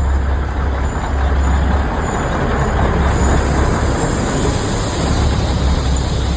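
Matheran narrow-gauge hill railway train running, heard as a loud, steady rumble of noise with a deep low throb; a brighter hiss joins about three seconds in.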